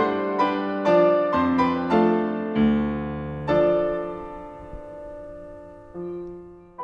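Solo piano music: a quick run of single notes, then a chord held and slowly fading, with a soft new note near the end.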